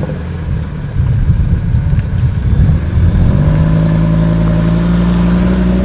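ABT-tuned Audi TT RS-R's turbocharged five-cylinder engine revving. It runs uneven and choppy at first, then about three seconds in settles into a steady, held rev.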